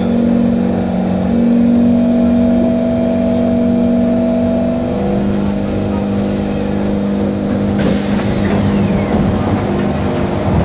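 Singapore MRT electric train braking into a station and stopping, its traction motors humming in steady low tones that step down in pitch. A high falling whine sounds near the end as the train comes to rest.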